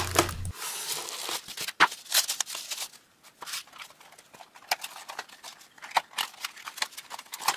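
Unboxing handling sounds: scattered light taps, clicks and short rustles as a computer case, a bubble-wrap bag and a small cardboard box are picked up and set down on a cloth-covered table.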